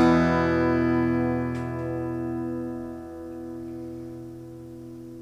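Outro music: a guitar's final strummed chord ringing out and slowly fading away.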